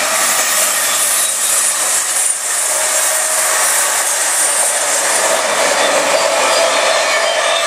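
Two electric passenger trains passing each other: a DB electric locomotive with ÖBB intercity coaches on the near track and a regional train of red coaches on the far track. Steady loud rush of wheels on rails, with faint steady whining tones over it.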